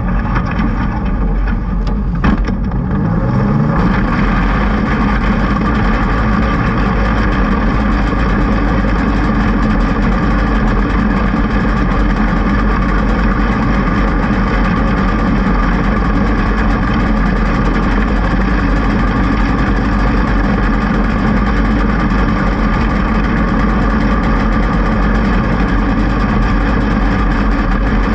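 Engine of an open 500 class winged micro sprint car, heard from on board while racing on dirt. It runs loud and nearly steady at high revs. Its pitch climbs about two to four seconds in as the car accelerates, then holds.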